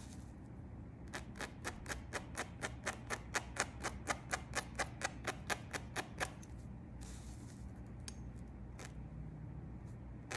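Tweezers snapping shut in quick succession, about six or seven clicks a second, as hairs are plucked from the lace of a frontal wig; the clicking stops about six seconds in.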